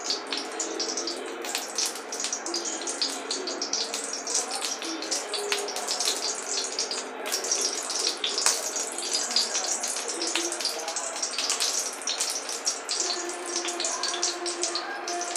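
Hot cooking oil crackling and sizzling in a wok: a steady, dense crackle of fine pops.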